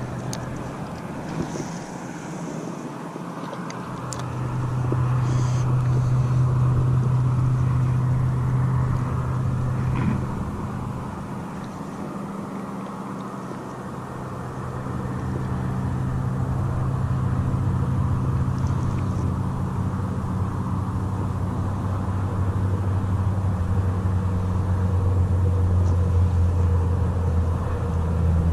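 An engine running with a steady low hum that grows louder, fades a little, then swells again and drops lower in pitch toward the end.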